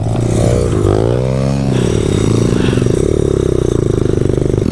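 Pit bike engine revving up and down three times, then running at a steady speed with an even, rapid pulsing beat.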